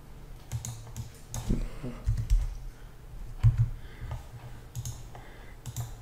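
Scattered, uneven clicks and taps from a computer keyboard and mouse, some with a dull knock on the desk.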